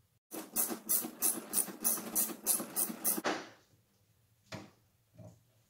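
Hand ratchet wrench turning the nut on the seat-hinge bolt, ratcheting rapidly at about five strokes a second for about three seconds before stopping sharply. Two single knocks follow near the end.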